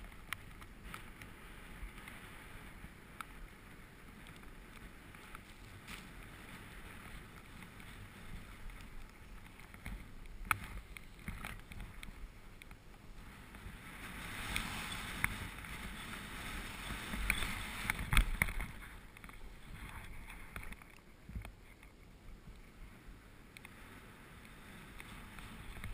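Skis sliding through deep powder snow, a soft steady hiss that grows louder for a few seconds past the middle, with a few sharp knocks.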